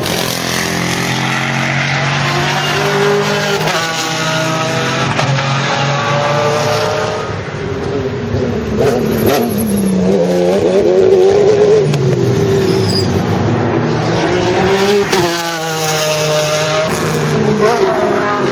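Race car engines at full song on a circuit, several at once, their pitch climbing and dropping through gear changes as the cars pass. A burst of sweeping pitch changes comes about fifteen seconds in.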